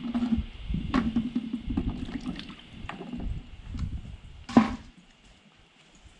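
Small gourds being dropped and handled into a tub of water, with splashing and knocks. About four and a half seconds in comes one loud hollow thump as a plastic bucket is set down on concrete.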